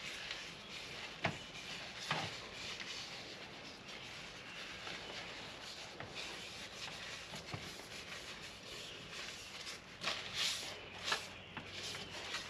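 Faint rubbing of a cloth rag wiping polyurethane onto wooden screwdriver handle scales, with a few light taps, several of them near the end.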